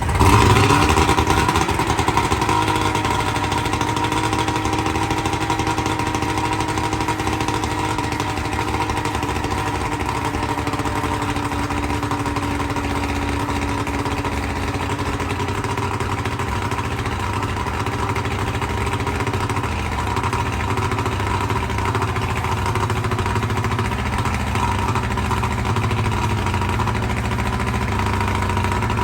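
A 1995 Johnson 70 hp three-cylinder two-stroke outboard motor, just started. It runs fast for the first couple of seconds, then the revs drop and it settles into a steady idle. It runs on a new CDI Electronics power pack with new plug wires and spark plugs, fitted to cure a misfire.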